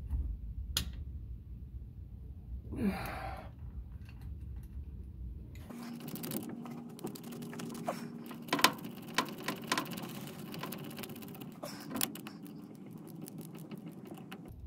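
Hand socket ratchet clicking as bolts are turned down, a run of quick clicks with a few sharper metal clinks, over a low steady hum. A short breathy sound comes about three seconds in.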